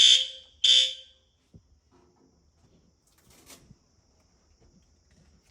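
Fire alarm sounding its high-pitched tone during a test, cutting off just after the start, with one more short blast just under a second in. A faint brief noise follows about three and a half seconds in.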